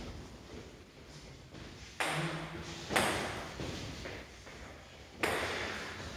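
A table tennis ball struck three separate times, each a sharp click that rings out in a large hall. The strikes come about two, three and five seconds in.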